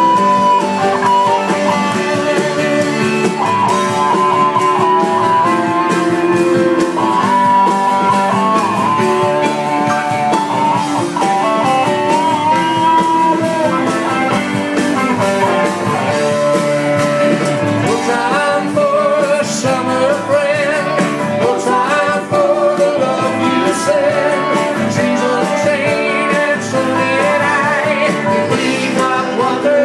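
Live band music led by guitar, in a bluesy rock style, with notes that bend in pitch.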